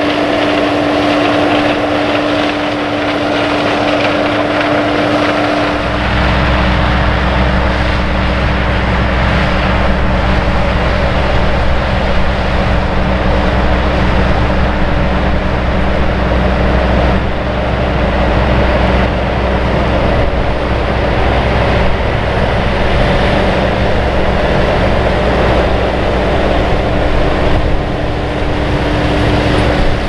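Cat Lexion 585R combine harvesting corn, running steadily with a droning note. About six seconds in, the sound changes to the deep, steady engine of a Versatile 485 four-wheel-drive tractor pulling a Kinze 850 grain cart.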